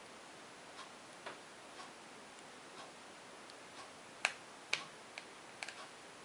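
Small pet nail clipper snipping a puppy's claws: a series of sharp clicks, faint at first, the two loudest about four seconds in, then a quick cluster of smaller clicks.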